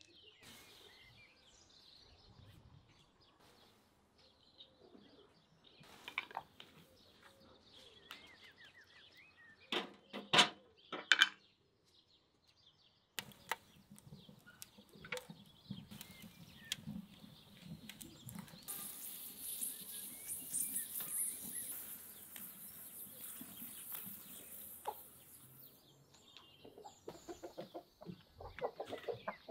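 Wood fire crackling in a stove's firebox, with many small ticks over a steady hiss. A few loud knocks come about ten to eleven seconds in, and chickens cluck near the end.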